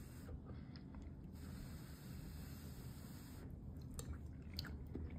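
A person chewing a mouthful of menudo (tripe stew), faint, with a few light clicks in the second half.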